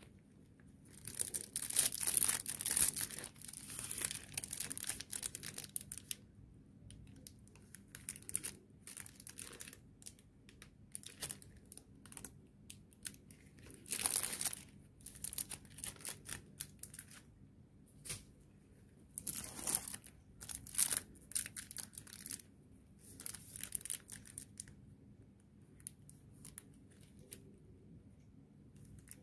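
Thin clear plastic sleeves crinkling and rustling as makeup brushes are slid out of them, in irregular bursts, the longest and loudest in the first few seconds.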